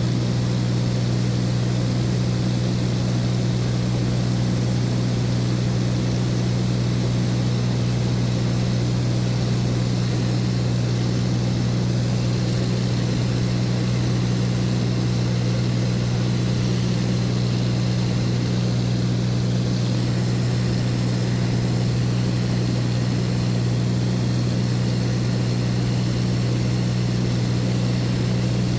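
Light propeller aircraft engine droning steadily in flight, a constant low hum with no change in pitch, as heard from inside the cabin.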